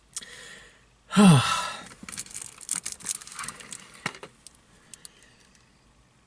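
A man's voiced sigh, falling in pitch, about a second in. It is followed by a couple of seconds of crinkling and rustling handling noise with small clicks, which then dies away.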